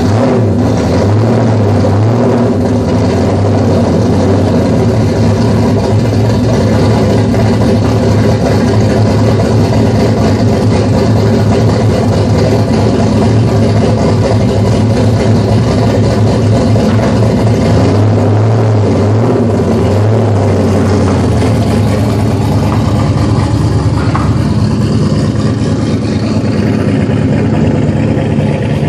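Modified 1400-horsepower 2003 Mustang SVT Cobra's V8 running loud and steady at idle, shortly after being started.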